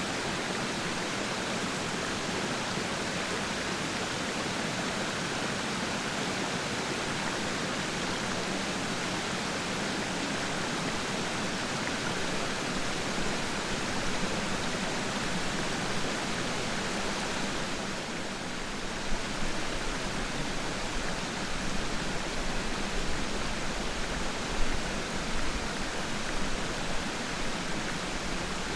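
Waterfall water rushing and splashing in a steady, even roar; shortly after the middle it dips briefly, then turns more uneven, with small splashy surges.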